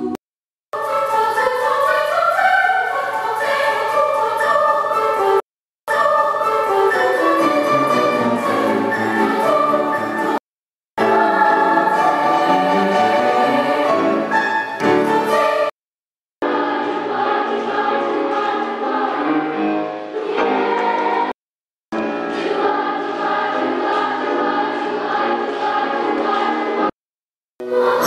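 Choir singing, cut into separate excerpts about five seconds long with brief silent gaps between them.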